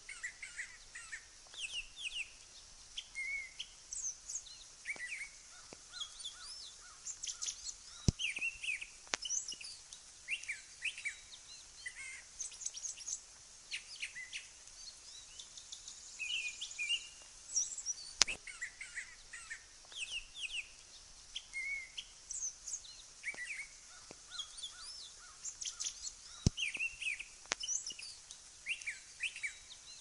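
Brown thrasher singing: a long, unbroken run of varied, quick chirping phrases. A few sharp clicks come through at times.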